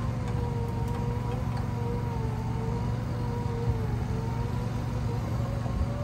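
A motor running steadily: a low drone with a faint whine that wavers slowly up and down in pitch.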